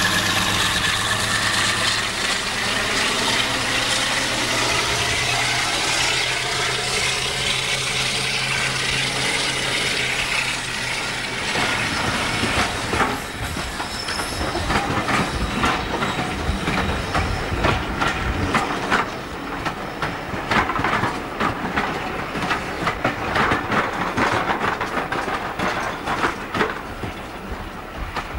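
Twin Maybach engines of a Class 52 'Western' diesel-hydraulic locomotive running with a steady note that drops out after about ten seconds. Passenger coaches then roll past with a rapid clickety-clack of wheels over the rail joints.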